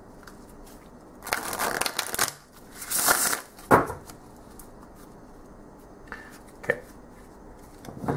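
Tarot deck being riffle-shuffled by hand: two quick rustling riffles of the cards interleaving, then a sharp tap as the deck is squared, with a couple of light taps near the end.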